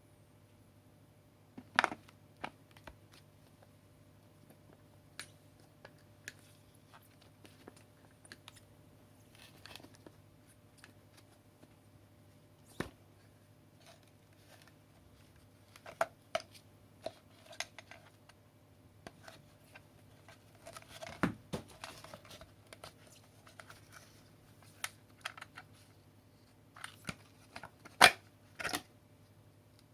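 Unboxing handling of a cordless vacuum's packaging and plastic parts: scattered clicks, taps and rustles, with a stretch of crinkling about two-thirds of the way through and the sharpest knock near the end.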